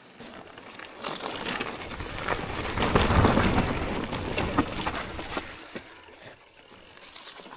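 Wind buffeting a chest-mounted DJI Mic Mini wireless microphone: a rush of noise with a low rumble that swells about a second in, is strongest around three seconds in, then dies away, with scattered rustles and clicks.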